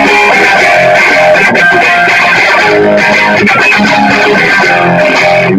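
Electric guitar played loud through an amplifier with both pickups combined on the selector (the mix setting), chords strummed and let ring with a slightly crisp, cutting edge. The playing stops abruptly at the end.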